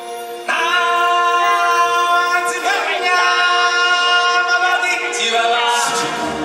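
Stage show singers with music: a held chord, then voices come in strongly about half a second in on long, sliding sung notes, with a deeper sustained tone joining near the end.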